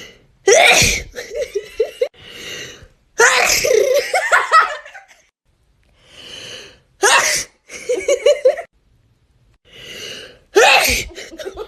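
Four loud sneezes set off by a Covid-19 nasal swab. Each comes after a sharp, audible in-breath, and short voiced sounds follow some of them.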